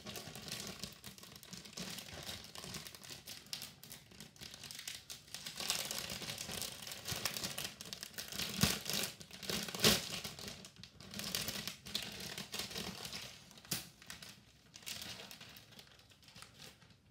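Clear plastic bags crinkling and rustling as plastic model-kit sprues are handled inside them, with a few sharper crackles around the middle.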